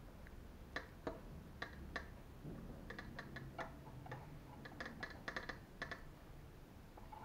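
Faint, irregular clicking of small metal and plastic parts being handled and worked with a small hand tool, assembling an RC truck's suspension ball joint; the clicks come in small clusters, with a brief light ring partway through.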